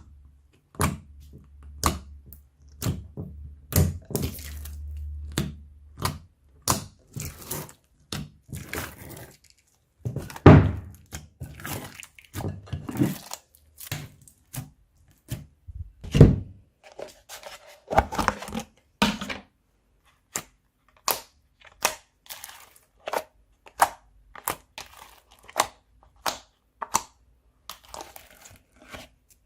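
Slime mixed with crunchy foam being pressed and squeezed by hand: an irregular run of sharp crackles and pops, about one or two a second, with a few longer squelching stretches.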